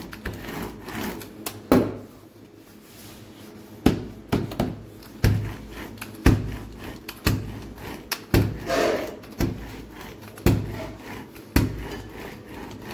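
Rolling pin rolling out laminated dough folded around ghee on a wooden table: a knock with each stroke, about once a second, with the pin rubbing over the dough between knocks.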